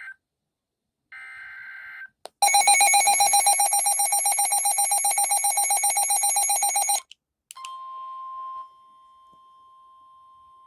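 Short, shrill two-tone data bursts like an EAS SAME header, then a loud, rapidly pulsing bell-like ringing for about four and a half seconds. After that comes a steady tone near 1 kHz, like the weather radio alert tone, which drops to a faint level about a second after it starts.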